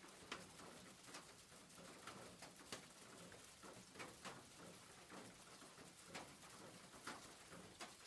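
Rain falling on a roof, faint: a steady soft hiss with irregular drops tapping through it, a few of them louder.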